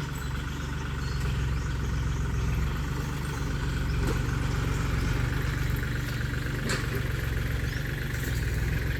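An engine running steadily at low idle, a constant low hum that doesn't rise or fall. A couple of faint clicks stand out about four and seven seconds in.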